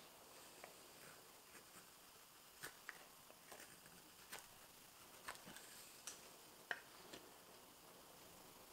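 Faint, crisp slicing clicks of a Morakniv 106 carving knife shaving fresh, dense maple: about a dozen short, irregular strokes, the sharpest about two-thirds of the way through.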